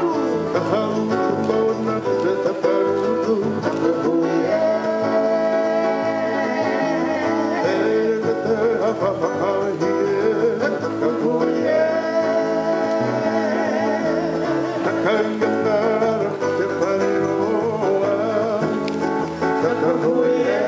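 Music: a song with wavering sung melody lines over guitar accompaniment, playing steadily throughout.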